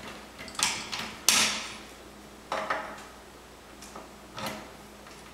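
Wrench and steel pedal clunking and scraping as a pedal is threaded onto a bicycle crank: four short sounds, the loudest about a second in.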